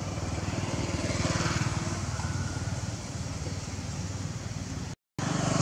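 A small engine running steadily with a fast, even pulse; the sound cuts out for a moment near the end.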